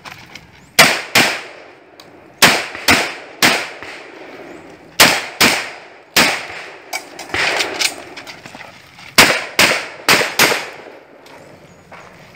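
Derya MK12 semi-automatic 12-gauge shotgun firing a dozen or so loud shots, mostly in quick pairs about half a second apart, with short pauses between the strings.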